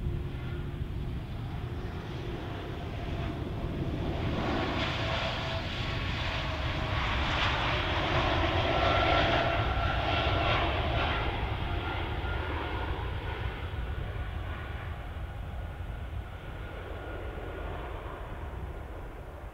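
Airbus A220-300's Pratt & Whitney PW1500G turbofan jet engines under power on a touch-and-go roll: a low rumble with a faint whine, growing louder as the jet passes, loudest about nine seconds in, then fading as it lifts off and climbs away.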